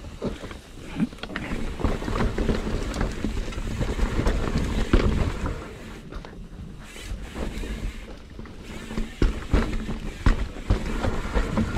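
Mountain bike riding fast down a dirt singletrack: tyres rumbling over dirt and roots, the bike knocking and rattling over bumps, with wind rushing on the camera microphone.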